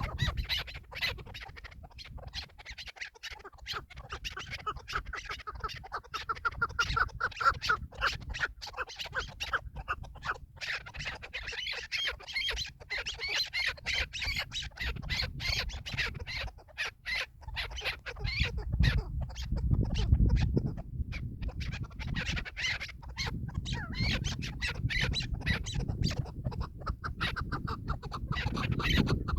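Chukar partridges calling: long runs of rapid, repeated chattering notes, over a low rumble of wind on the microphone.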